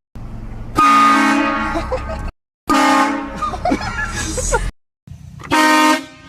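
Three short, loud air-horn blasts, each a steady chord, coming in quick succession with brief silent gaps between them; between the blasts, startled people yelp and shout.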